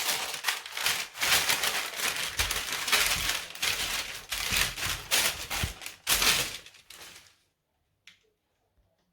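Baking paper crinkling and rustling as it is handled and folded, a dense crackle that stops about seven seconds in.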